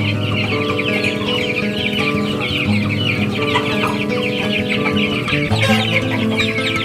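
A flock of chickens calling in a dense, continuous high chatter, over background music of held low notes.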